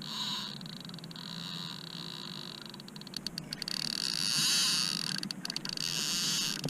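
Insects buzzing in a pulsing chorus, swelling loudest about four seconds in and again near the end, with a quick run of clicks just before the swell.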